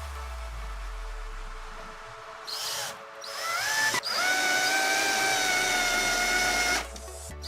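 Skil 14.4 V cordless drill's motor, running on a rebuilt lithium-ion 18650 pack: a short burst about two and a half seconds in, then it spins up with a rising whine and runs at a steady high pitch for about three seconds before stopping.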